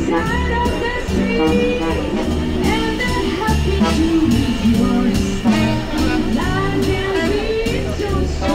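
Jazz music with held instrumental notes over a steady bass line.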